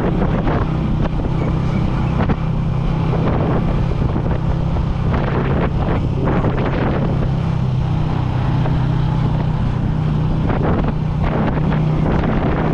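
Small motorcycle engine running at a steady cruise while riding, heard from the saddle, with wind buffeting the microphone.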